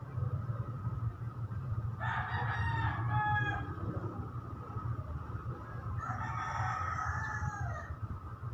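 A rooster crowing twice, about two seconds in and again about six seconds in, each crow lasting under two seconds, over a steady low hum.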